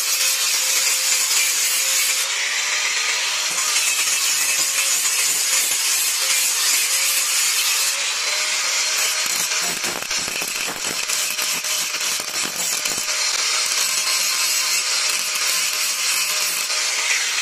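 Bosch angle grinder running with its disc grinding the steel of a knife blade: a steady high grinding hiss over the motor's whine, which shifts slightly in pitch a few times. Around the middle the grinding turns rougher and more broken for a few seconds.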